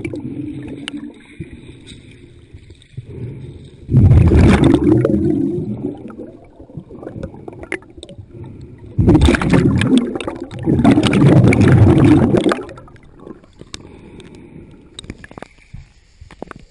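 Water bubbling and churning over a camera held underwater, heard muffled, with three loud rushing surges in the middle of the stretch and quieter bubbling between them.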